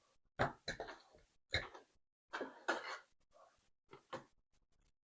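A string of short scrapes, clicks and handling knocks as an EVVA EPS slider lock is taken apart by hand.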